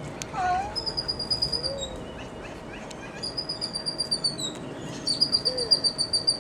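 A bird chirping in rapid, evenly spaced high trills, in three bouts that grow louder, with a short lower sliding call near the start and again near the end.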